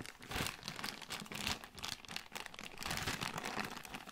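Thin clear plastic bag crinkling and rustling as it is handled and pulled at, an irregular run of small crackles.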